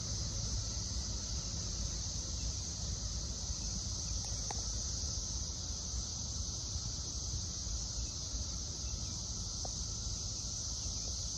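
Cicadas droning in a steady, unbroken high-pitched chorus, over a low rumble.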